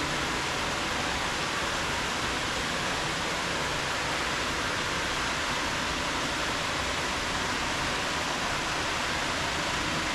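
Steady rush of running water at a garden fish pond.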